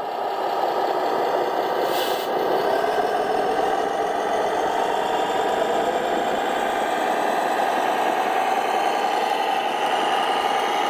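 Radio-controlled model heavy truck running steadily, an engine-like drone with rattle and a whine that rises slowly in pitch. A brief hiss comes about two seconds in.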